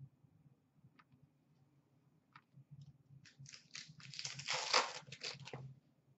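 Trading cards handled by hand: a couple of faint clicks, then, starting about three seconds in, a few seconds of rustling and sliding as the cards rub against each other.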